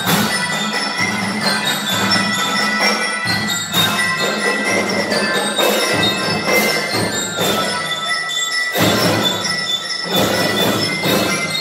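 Marching drum band playing live: held brass chords punctuated by repeated drum and cymbal hits, with bright bell-like notes above.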